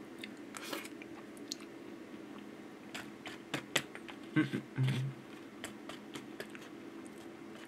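Chopsticks clicking and scraping in a styrofoam natto tray while picking up sticky fermented soybeans, a handful of light sharp clicks, with two short low mouth sounds about four and five seconds in.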